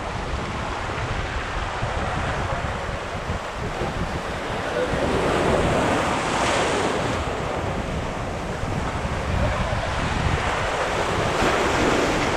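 Sea waves surging and washing over rocks, swelling twice, around the middle and near the end, with wind buffeting the microphone.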